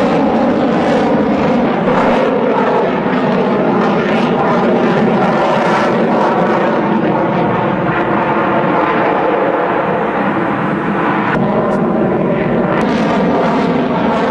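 Fighter jet engine running at high power overhead: a loud, steady roar with a faint whine running through it.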